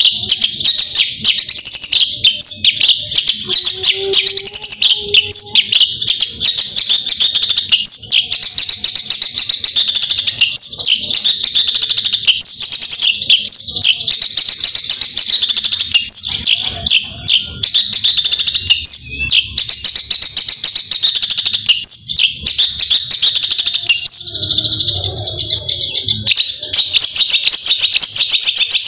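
Long-tailed shrike (cendet) singing hard, a loud, unbroken stream of rapid, high, chattering notes of the kind called 'tembakan'. It breaks off briefly about three-quarters of the way through.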